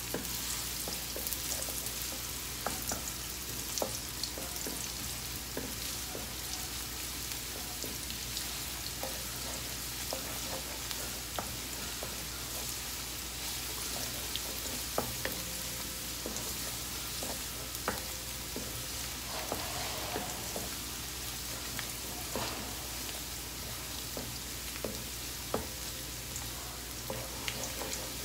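Sliced ginger and garlic sizzling in oil in a stone-coated wok, sautéed until golden while a wooden spatula stirs and scrapes through them. A steady sizzle with scattered sharp clicks.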